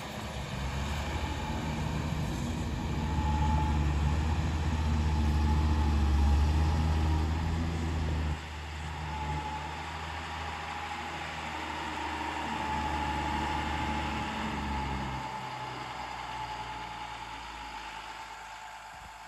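Diesel engine of a loaded Eicher dump truck running under load as it pulls away, a steady low hum. About eight seconds in the level drops suddenly, and the engine goes on quieter and more distant, slowly fading.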